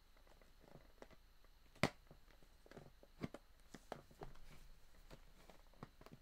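Scattered light clicks and taps of hands working the push-in tabs on the plastic lid of a Funko Soda can, with a sharper click about two seconds in; the lid has not yet popped off.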